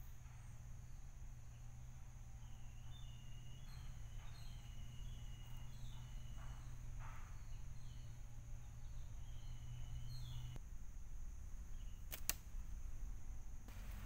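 Faint outdoor ambience: a steady high insect drone with short bird chirps over it, and a single sharp click about twelve seconds in.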